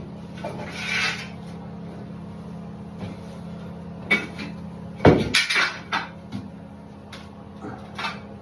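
Clinks and knocks of metal shower-door frame rails being handled and set down, a scattered few with a quick cluster about five seconds in, over a steady low hum.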